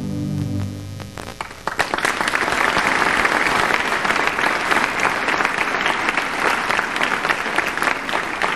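A held electronic keyboard chord fades out about a second in. Then an audience breaks into applause that builds quickly and keeps going.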